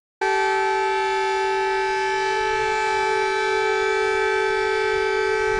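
Public emergency warning siren from an alert-alarm recording: a loud steady tone that starts suddenly just after the beginning and holds one pitch without rising or falling.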